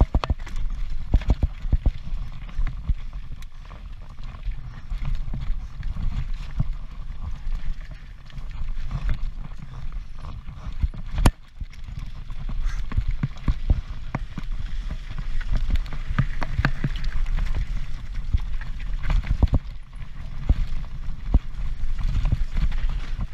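Transition Patrol mountain bike clattering downhill at speed over rough trail: a constant run of rattles and knocks from the frame, chain and tyres, with one sharp crack about eleven seconds in. Wind rumbles on the helmet camera's microphone underneath.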